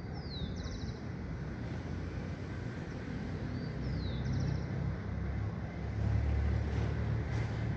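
A low rumble that swells about halfway through and is loudest near the end. Twice, about four seconds apart, a bird gives a short falling call followed by a quick run of high notes.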